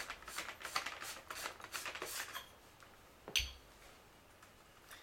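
Plastic and metal parts of a Tiberius T9 paintball marker and its Qloader mount being handled: a quick run of small clicks and rattles, then one sharp clack a little over three seconds in.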